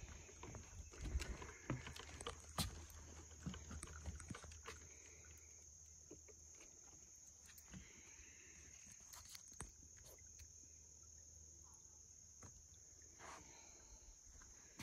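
Footsteps on a muddy woodland trail, with scattered knocks and a low rumble in the first five seconds or so, over a faint steady high-pitched hiss.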